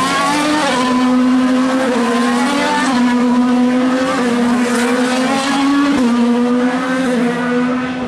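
IndyCar race car's 2.2-litre twin-turbo V6 running hard at high revs on track, one loud continuous engine note that holds fairly level with a few small jumps and dips in pitch.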